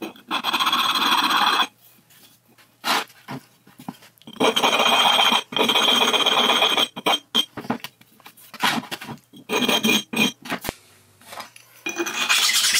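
Abrasive sharpening stone rubbed over the machined metal faces of a mini lathe's saddle, a series of harsh rasping scrapes, each about a second long, with short pauses between them; the stone is cutting off burrs and raised edges. The footage is sped up threefold, which quickens the strokes.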